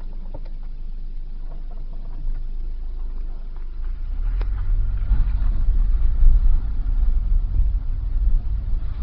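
A 2001 Nissan Sentra SE's SR20 2.0-litre four-cylinder engine idling roughly. It gets louder and more uneven about four seconds in. This is a rough idle that the owner traced to a weak mass airflow sensor.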